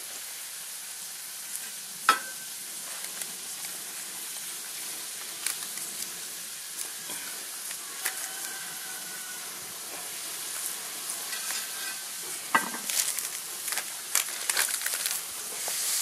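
Frog legs frying in oil in a cast iron skillet over a campfire: a steady sizzle. It is broken by scattered sharp clicks and knocks, the loudest about two seconds in and another about twelve and a half seconds in.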